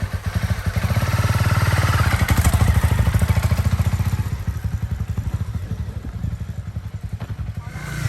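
Motorbike engine running with a fast, even low putter, growing fainter over the second half as the bike rides away.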